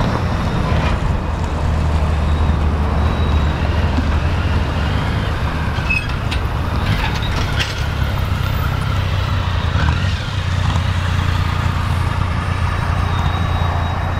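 Tail end of a slow freight train rolling past: a steady low rumble from the cars and caboose, with a few sharp metallic clicks and a short high squeal about halfway through.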